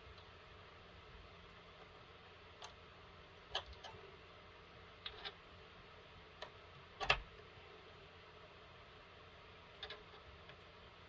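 Scattered light clicks and knocks of small hard objects being handled, the loudest a sharper knock about seven seconds in, over faint room hiss.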